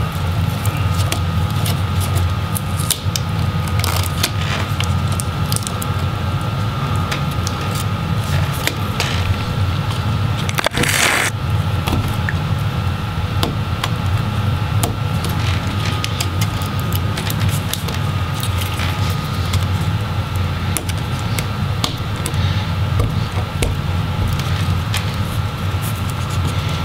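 A steady low hum throughout, over small scattered clicks and scratches of fingers and a plastic pry tool working at a laptop's adhesive-held Wi-Fi antenna cables and ribbon cables. There is a short scratchy rasp about eleven seconds in.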